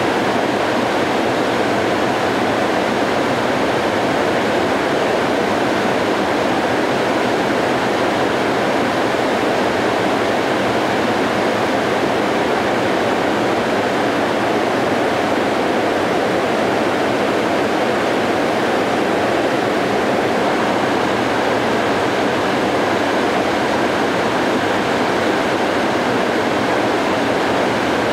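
River floodwater pouring over a dam spillway and churning in the pool below: a loud, steady, unbroken rush of water.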